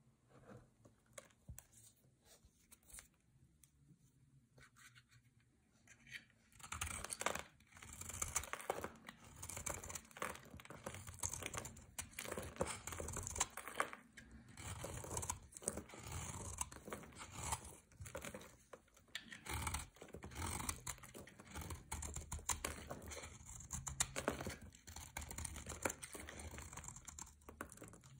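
A knife blade shaving a bar of pink soap, crisp scraping and crackling as curls and flakes break off. It is faint and sparse at first, then becomes dense about six and a half seconds in.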